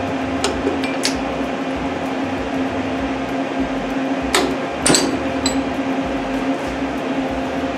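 A few sharp metal clinks as a welded aluminium plate is worked loose from a steel bench vise with pliers and lifted out. The loudest two come close together about four and a half seconds in, over a steady hum.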